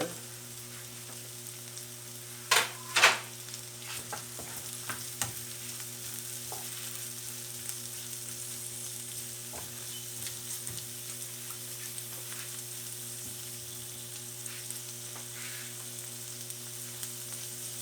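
Onion, garlic, ginger, carrot and bell pepper sautéing in oil in a pan, a steady sizzle over a low hum. Two sharp clacks come about two and a half and three seconds in, and lighter taps of stirring follow.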